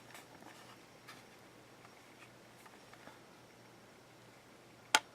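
Faint handling taps and scrapes as a small solar charge controller's case is turned over, then one sharp click a little before the end.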